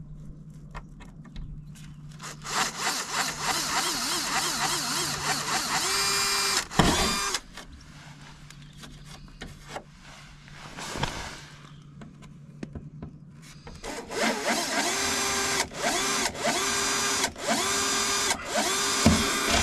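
Bosch cordless drill boring small pilot holes through a fibreglass bumper. It runs steadily for about five seconds, then, after a quiet gap, drills again near the end in several short trigger pulls.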